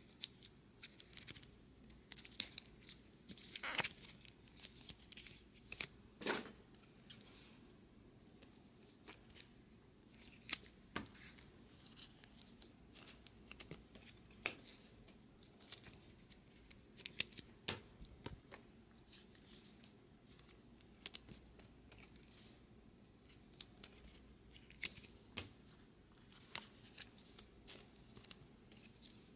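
Trading cards being handled and slid into thin plastic sleeves: a faint, irregular run of short rustles, scrapes and clicks of plastic and card stock.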